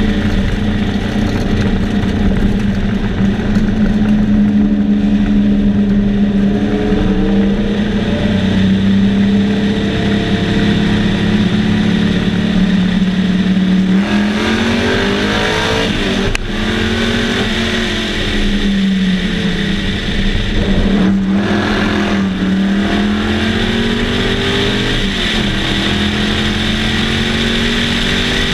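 Sunbeam Tiger race car's Ford V8 at racing speed, heard from the open cockpit with wind noise. The engine note holds steady for about the first half, then the revs climb and drop repeatedly, falling sharply a couple of times.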